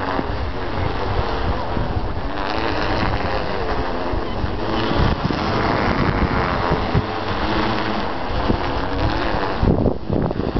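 Wind buffeting the microphone outdoors, a steady low rumble with gusty swells and no distinct event.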